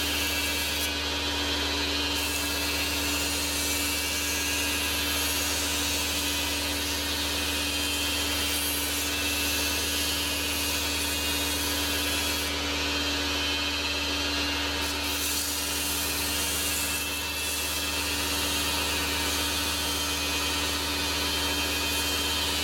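Manual metal lathe running steadily while machining, with a constant hum and a broad hiss over it.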